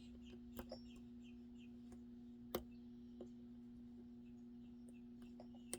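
Faint, scattered clicks of a lock pick working the pins inside an Assa Twin 6K lock cylinder, with one sharper click about two and a half seconds in, over a steady low hum.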